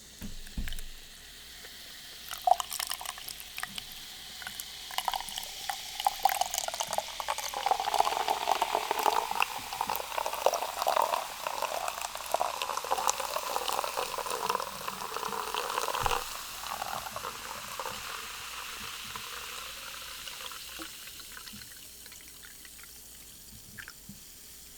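Liquid being poured in a long, continuous stream, building over the first few seconds and fading away over the last several, with scattered small clicks.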